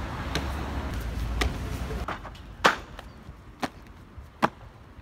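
A low rumble for the first two seconds, then three sharp slaps spaced about a second apart, the loudest about two and a half seconds in: a freerunner's shoes landing and hands striking stone.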